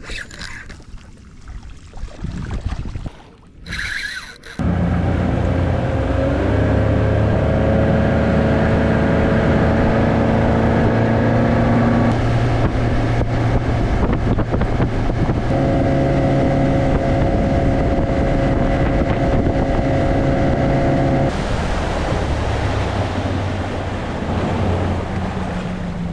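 Yamaha outboard motor driving a boat under way, with wind and water noise. It starts loud about four and a half seconds in, speeds up a second or two later, runs steadily, then eases off near the end.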